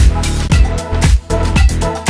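Background dance music with a steady beat.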